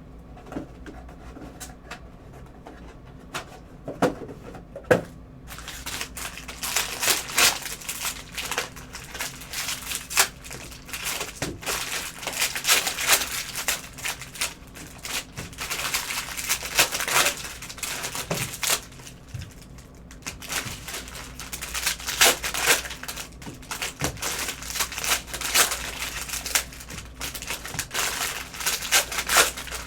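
Trading cards and their cellophane pack wrapper being handled: crinkling plastic and cards clicking and sliding against each other. It starts quietly with a couple of clicks and turns dense and busy from about six seconds in.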